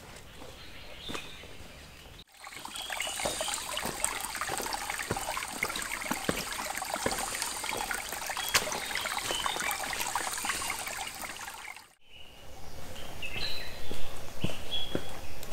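Footsteps on a wet forest trail. From about two seconds in, and for nearly ten seconds, a small stream trickles over rocks under steps on wet stones. Near the end, sharper footsteps crunch through dry leaf litter, with short bird chirps.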